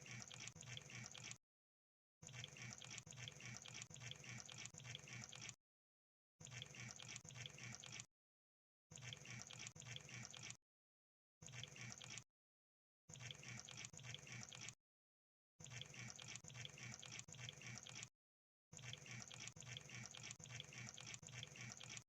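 Crab sound effect: bursts of dense, rapid clicking and crackling, each one to three seconds long, separated by short gaps of dead silence, about eight bursts in all.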